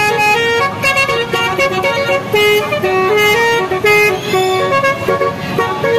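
Telolet 'basuri' musical air horns on a car sounding a quick tune: loud held notes that step up and down several times a second.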